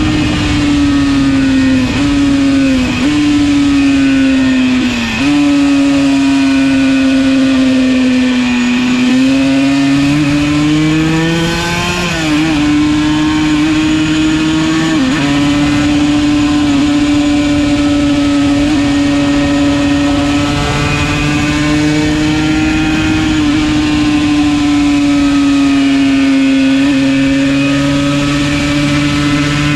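Yamaha TZ125's two-stroke single-cylinder engine running hard at high revs, its pitch dropping briefly several times at gear changes and otherwise held near steady, with a steady rush of wind noise underneath.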